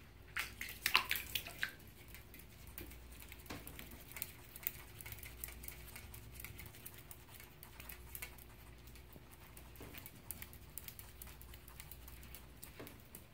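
A pet skunk moving about in shallow bathwater in a bathtub: light splashing and scattered clicks and scratches, busiest about a second in, then sparse.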